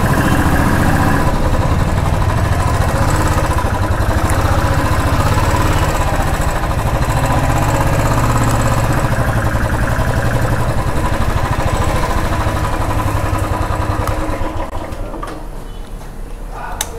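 Royal Enfield motorcycle engine running steadily at low revs, then switched off about three-quarters of the way through, leaving only quieter background street noise.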